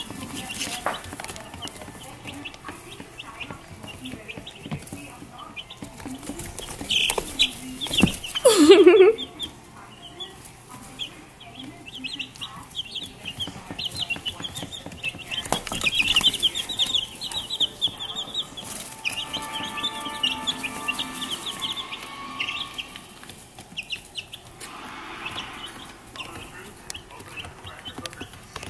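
Two-week-old chicks peeping, a steady stream of short high chirps that gets busiest about halfway through. About eight seconds in there is one brief, louder, lower sound.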